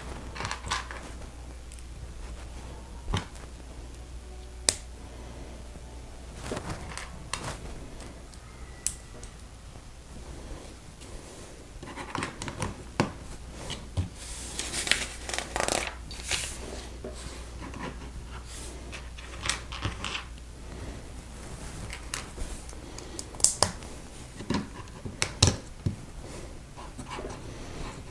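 Lego bricks being handled and snapped together: scattered sharp plastic clicks, with bursts of rustling around the middle and again near the end.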